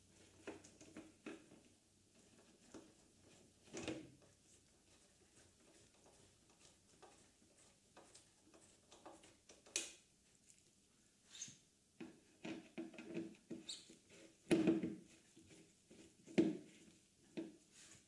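Scattered small clicks, scrapes and knocks of a screwdriver and gloved hands working on the plastic tail section of a 2001 Yamaha R1, with a few louder knocks near the end.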